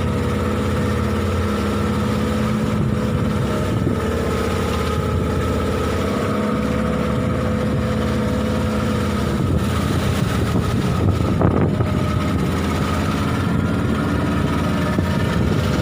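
Small fishing boat's engine running steadily, with an even rushing noise of wind and water underneath.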